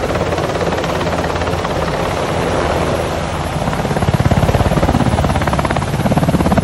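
Toy helicopter with its plastic rotor spinning: a fast, steady chopping whir that grows a little louder about four seconds in.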